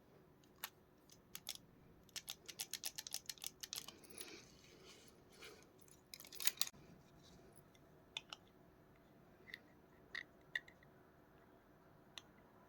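Small plastic clicks and taps from handling a computer keyboard and mouse: a quick run of clicks about two seconds in, a louder cluster about six and a half seconds in, then scattered single clicks.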